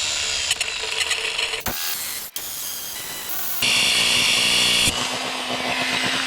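Grinder cutting through a motorcycle's old steel drive chain, a continuous harsh grinding over the motor's whine, louder and harsher for about a second around two-thirds of the way in. Near the end the motor's pitch starts to fall as the grinder spins down after the cut.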